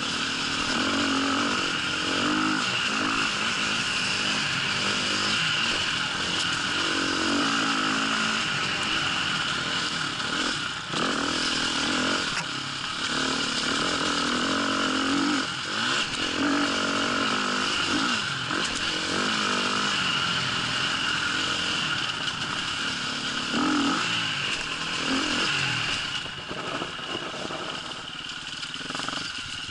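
Dirt bike engine on the move, its revs rising and falling every second or two through gear changes and throttle, with the rattle of the ride over rough ground. The engine eases off and goes quieter near the end.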